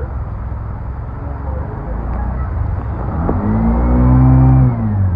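Steady low rumble of road traffic in heavy rain, then a large diesel vehicle's engine, likely the city bus alongside, swells up about three seconds in as it pulls close, its pitch rising and then sinking, and is loudest a second later before dropping away near the end.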